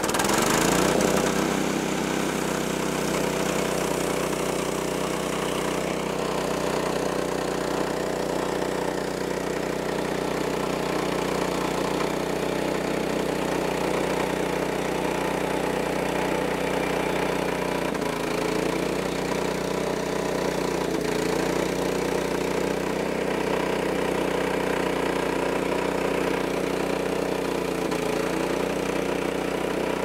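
The small gasoline engine of a portable band sawmill comes up to speed right at the start, then runs steadily through a cut, with a brief waver in pitch partway through.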